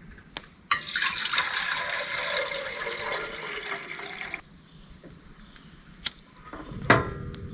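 Water being poured into a container to make coffee, a steady pour of about four seconds that stops abruptly. Two sharp knocks follow near the end.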